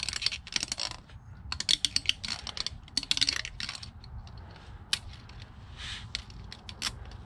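Bursts of sharp metallic clicks and rattles from a timing belt and camshaft sprockets being worked by hand on a 1996 Mitsubishi Montero's 3.5 dual-overhead-cam engine, with the sprocket under spring tension from the belt. The clicks come in several short clusters, then a single click near the end.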